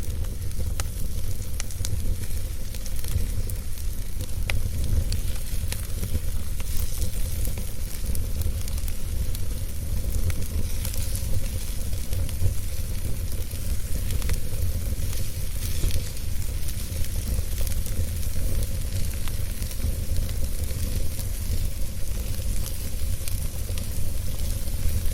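Wood fire in a fireplace crackling and hissing, with scattered small pops over a steady low rumble.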